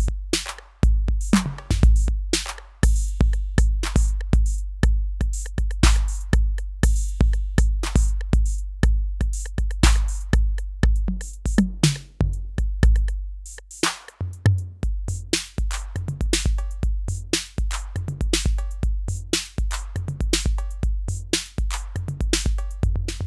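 Yocto, a DIY clone of the Roland TR-808 analog drum machine, playing a programmed beat: deep booming 808 bass drum under fast hi-hats and snare and clap hits, with the pattern briefly dropping its bass drum about two thirds of the way through before it comes back.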